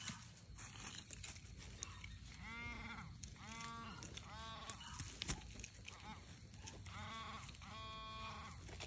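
Metal detector sounding on a target: a pitched tone that rises and falls in pitch with each pass, about once a second, in two runs of three.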